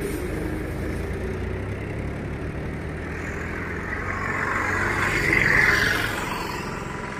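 Highway traffic: a steady engine hum, with one vehicle swelling past, loudest about five and a half seconds in.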